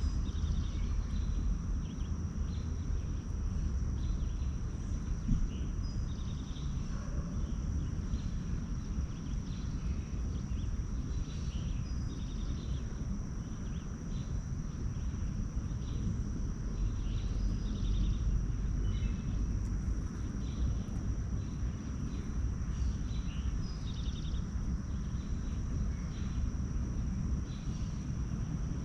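Outdoor nature ambience: small birds chirping in short, scattered calls over a steady high-pitched insect drone and a low rumble.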